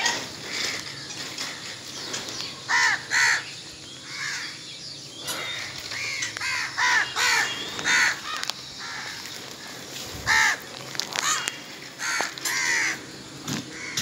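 Several house crows cawing over and over, the caws often coming in pairs or quick runs of two or three and overlapping between birds.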